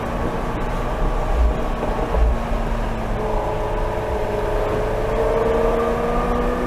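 McLaren 720S twin-turbo V8 running at moderate speed, heard from inside the cabin over road noise, its note rising gently from about halfway through as the car picks up speed.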